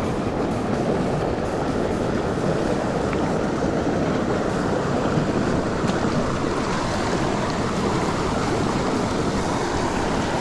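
Fast-flowing creek water rushing over rocks close by, a steady, unbroken rush of water.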